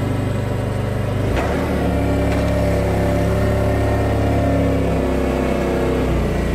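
Toyota forklift's engine running, picking up after a click about a second and a half in as the truck is driven off, then easing back near the end.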